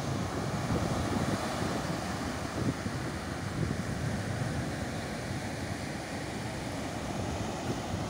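Small waves breaking and washing up a sandy beach, a steady surf noise, with wind buffeting the microphone.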